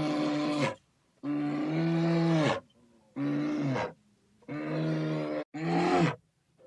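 An animal's loud calls: five long, steady-pitched calls of about a second each, separated by short pauses, each dropping slightly in pitch as it ends.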